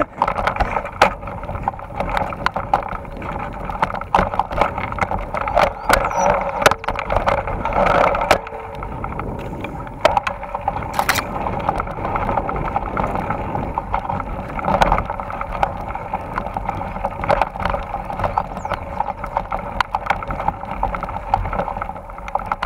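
Mountain bike riding over a rough dirt trail: a steady rushing noise with frequent irregular rattles and knocks from the bumps.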